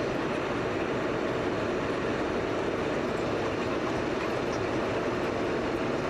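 Steady rushing noise of a vehicle in motion, heard from inside.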